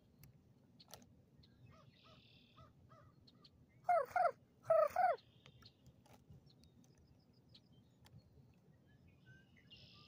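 Four loud, harsh crow caws in two quick pairs about halfway through, each call falling in pitch. Faint small-bird chirps come and go around them.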